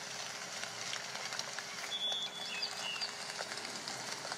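Steady crackling hiss in the background, with a faint held low tone under it and a few faint high chirps about two to three seconds in.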